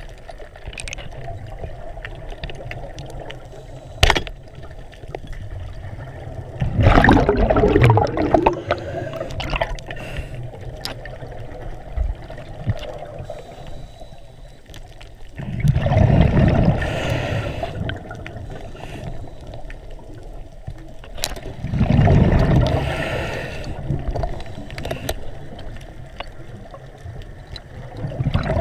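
Muffled underwater water noise heard through an action camera's waterproof housing, swelling into several loud rushing surges, with a single sharp knock about four seconds in.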